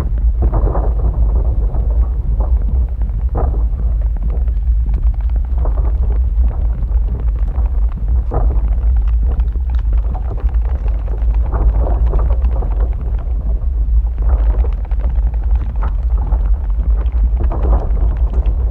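Active lava flow: a steady deep rumble with irregular crackles and pops.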